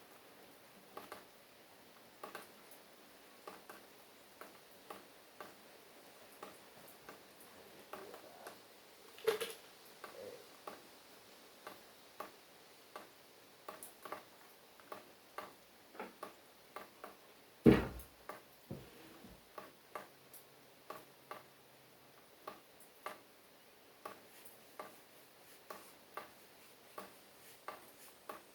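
Faint, irregular taps, roughly one or two a second, with a louder knock about nine seconds in and a sharp, loud knock a little past halfway.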